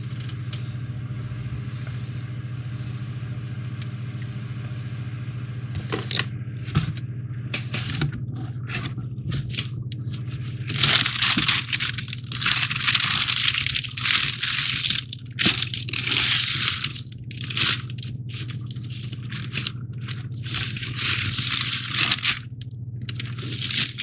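Paper packing crinkling and rustling loudly in irregular bursts as it is pulled out of a cardboard shipping box, after a few seconds of scattered clicks and scrapes from the cardboard. A steady low hum runs underneath throughout.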